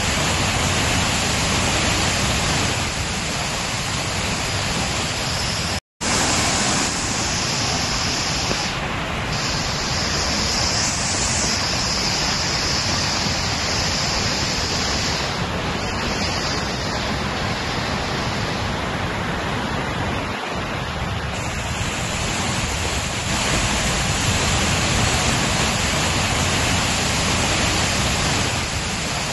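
Flood-swollen waterfall: a heavy, muddy torrent pouring over rocks, making a loud, steady rushing noise. A split-second gap breaks it about six seconds in.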